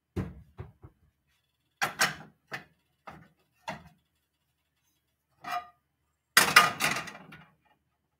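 Metal frying pans knocking and clattering as they are handled and set down on the stovetop's coil burners: a string of separate knocks, with the loudest run of rattling strikes near the end.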